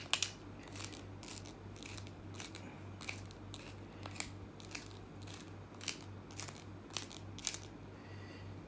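Wooden pepper mill grinding black peppercorns: an irregular run of sharp, crunching clicks, a few each second, as the top is twisted back and forth. A faint steady low hum sits underneath.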